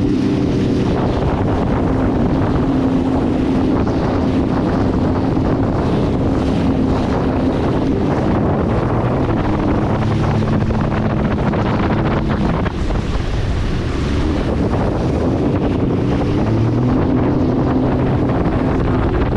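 Motorized watercraft engine running under way, its tone shifting in pitch about halfway through, with heavy wind noise buffeting the microphone.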